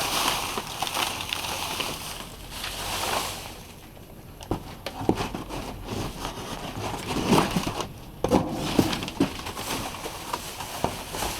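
Dumpster contents being rummaged with a reaching stick: rustling and crinkling of trash and boxes, with scattered knocks and scrapes.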